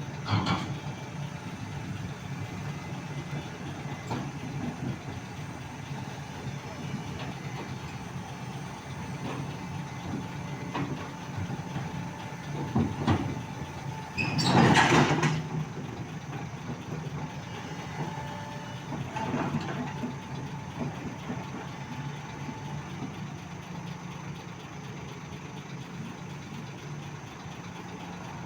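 Heavy diesel engine of an excavator running steadily at idle, with a few short knocks and one loud rushing burst lasting a second or two about halfway through.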